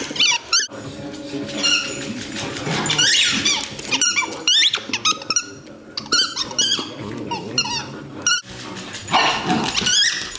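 Welsh terriers playing together: low growling under many short, high-pitched squeaks that come in quick runs throughout.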